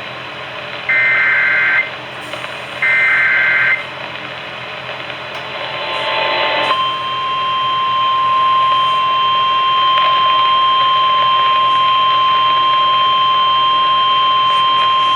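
Emergency Alert System activation heard over AM radio. The last two of the three one-second bursts of warbling SAME header data come first. About seven seconds in, a steady alert tone begins and holds.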